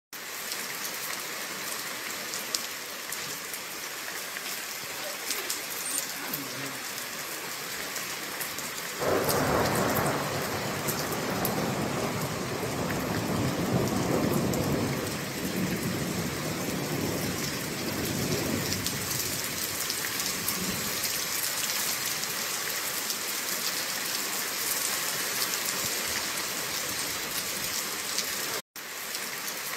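Heavy rain hissing and pattering on a wet street. About nine seconds in, a loud rumble of thunder breaks in suddenly and rolls on for about ten seconds before fading back under the rain.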